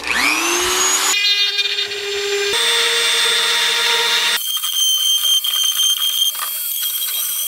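Dremel rotary tool spinning up with a rising whine, then running at high speed with a 1.75 mm plastic filament rod in its collet, friction-welding the seams of a 3D-printed part. Its steady whine jumps abruptly to a new pitch three times.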